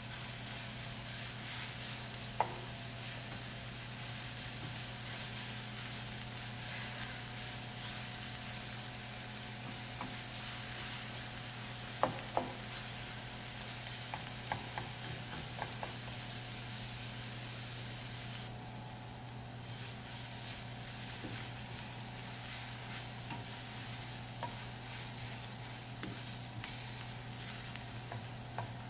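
Sliced red onions sizzling with a steady hiss in a ceramic-coated frying pan, with a few sharp clicks as a utensil stirs against the pan.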